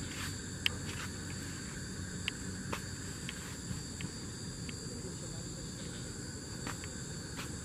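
Insects, crickets or similar, chirring steadily in two high continuous tones, with a few scattered sharp clicks over them.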